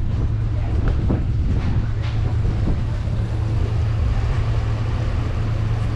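Steady low engine hum under wind on the microphone, with a few light rattles about one and two seconds in.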